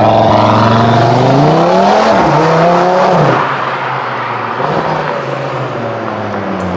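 Cupra Formentor VZ5's turbocharged five-cylinder engine, breathing through an Akrapovič Evolution exhaust, accelerating away. The revs climb for about two seconds, dip briefly, climb again, then drop about three seconds in to a steadier, quieter note as the car moves off down the road.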